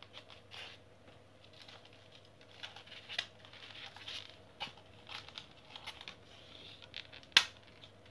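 Hands working a styrofoam line holder and nylon fishing line: faint rubbing and crinkling with scattered soft clicks, and one sharp click about seven seconds in.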